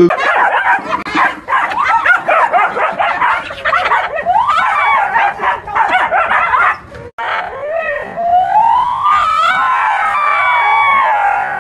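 A dog barking and yelping in quick, pitch-bending cries, then a long howl-like cry that rises, holds and falls near the end.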